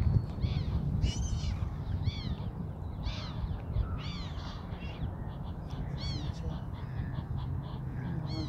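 Gulls calling, short harsh arched cries about once a second, over a steady low rumble.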